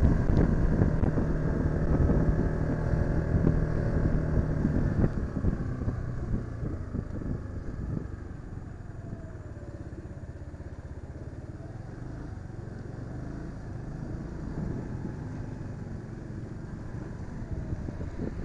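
KYMCO motorcycle engine running while riding, with road noise; louder and steady for the first five seconds or so, then quieter from about six seconds in as the bike eases off.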